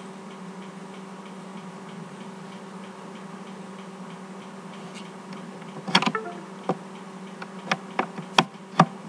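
A steady low hum, then, starting about six seconds in, a run of sharp clicks and taps from working a computer's pen or mouse input, about six of them in three seconds.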